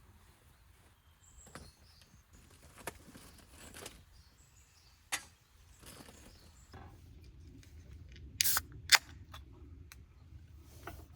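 Scattered sharp clicks and knocks of small objects being handled, the loudest a short double knock followed by a sharp click near the end, with faint bird chirps in the first half.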